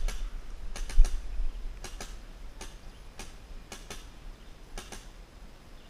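Scattered paintball fire: sharp clicks, mostly in quick pairs, repeating every half second to a second, then stopping about five seconds in. Low rumbles of wind or handling come at the start and again about a second in.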